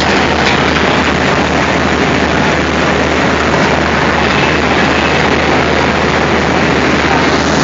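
Diesel locomotive engine running close by: a loud, steady rumble and hiss that does not change.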